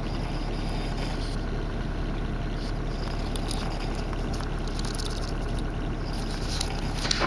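Steady drone of a bus engine heard inside the passenger cabin, with a few faint ticks and rustles and a brief louder noise near the end.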